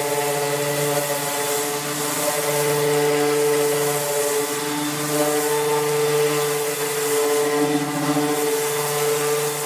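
Master Force random orbital sander running steadily as it sands a boat hull: an even motor hum over the hiss of the sanding pad on the surface.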